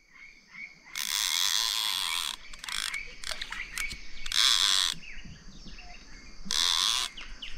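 Fishing reel cranked in four short bursts of ratcheting whirr, the longest about a second in, as line is reeled in on a rod with a fish or bait being checked.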